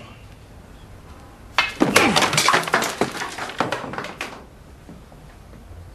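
A burst of crashing and clattering, with sharp knocks and breaking sounds, starting about a second and a half in and lasting roughly two and a half seconds.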